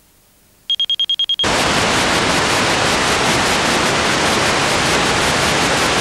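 Seven short high-pitched beeps in rapid succession, about ten a second, then a sudden switch to loud, steady TV static hiss: the broadcast signal has ended and the television tuner is receiving only noise.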